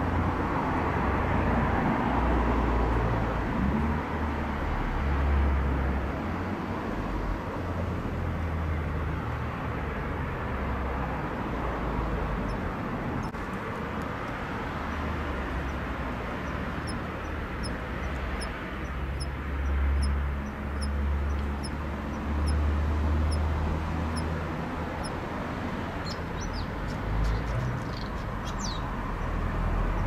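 Kanetataki (Ornebius kanetataki) cricket singing faint, sparse, short high ticks, about two a second, from about halfway through, over a steady low rumble. The song is weak because of the late-autumn cold at the end of its singing season. A few sharper chirps come near the end.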